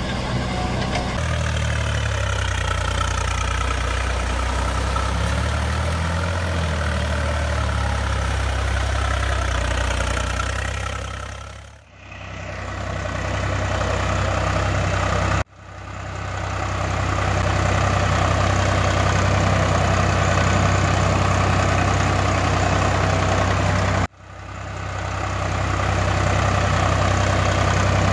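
A diesel engine running steadily, a recorded engine sound laid over toy-vehicle pictures. It drops out three times, about 12, 15 and 24 seconds in, and swells back in each time.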